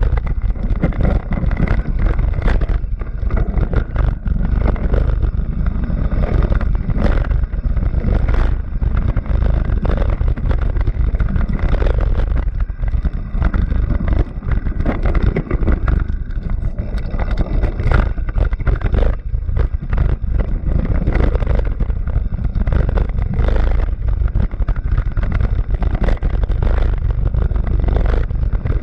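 A vehicle engine running continuously, heard through a heavy, gusty rumble of wind buffeting the microphone.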